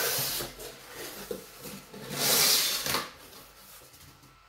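Cardboard shipping box being opened and rummaged through, with flaps scraping and contents rustling. A short scrape at the start, then a louder one lasting about a second, then quieter handling.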